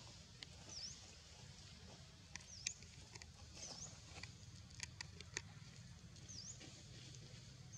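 Faint crackles and clicks of a dry leaf being handled by a macaque. Faint high chirps repeat about once a second over a low steady hum.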